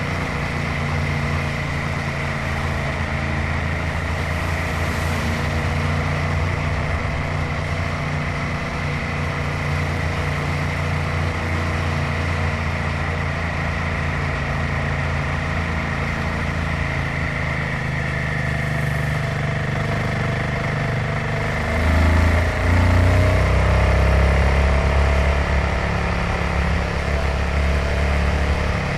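Royal Enfield Himalayan 450's single-cylinder engine running steadily on the road. About three quarters of the way through, the engine note shifts and gets louder.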